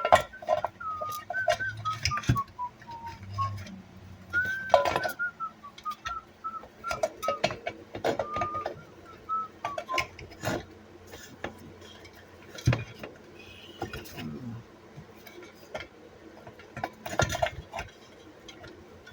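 A person whistling a wandering tune for about the first ten seconds, the notes stepping down and back up. Throughout there are clinks and clicks of metal parts and tools being handled.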